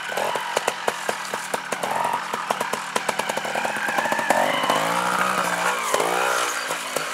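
Trials motorcycle engine running at low revs with a rapid, uneven popping, then revved up and down twice in the last few seconds.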